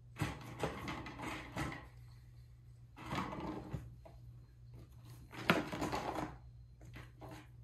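A cat pawing and digging inside a cardboard box, scratching and rustling the cardboard in four bursts, with a sharp knock about five and a half seconds in.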